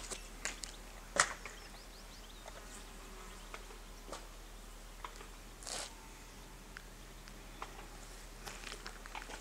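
Quiet outdoor ambience: a low steady hum under scattered faint clicks and ticks, with a sharper click about a second in and a brief soft rustle a little after the middle.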